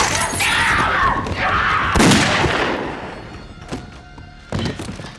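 Soundtrack of a violent fight scene: heavy hits and thuds over background music. The loudest hit comes about two seconds in, then the sound dies down with a few fainter thuds near the end.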